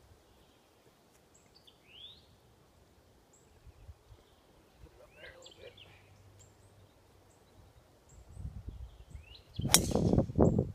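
Faint bird chirps, then near the end the swish of a golf driver's full swing and a single sharp crack as the clubhead strikes the ball off the tee.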